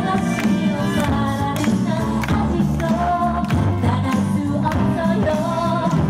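Pop song played loud over stage speakers: a woman singing into a microphone over a recorded backing track with a steady beat.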